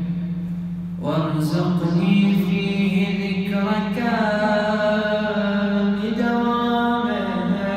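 A male reciter chanting an Arabic supplication (du'a) unaccompanied, in long held notes that step from pitch to pitch. A held note fades through the first second, and a new phrase begins about a second in.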